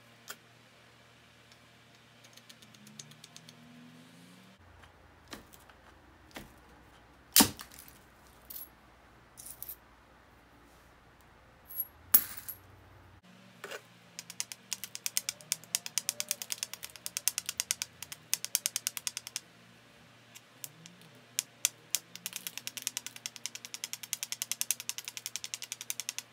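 Flint Ridge flint biface being worked with an antler billet: scattered light clicks and two sharp cracks, about 7 and 12 seconds in, as flakes are struck off, then long runs of rapid light ticking as the edge is worked over.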